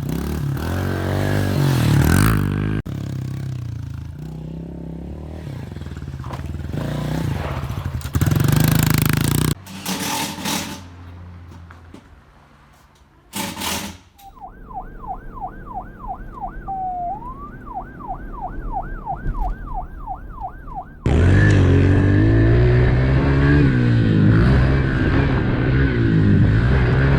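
A vehicle engine running through several abrupt cuts. A siren then wails in rapid rising sweeps, about three a second, for some seven seconds. The engine comes back in loudly after that.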